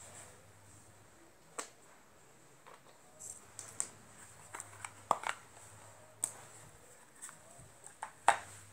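Scattered light clicks and knocks of a plastic hot-glue gun being handled and turned over, the loudest one near the end as it is set down.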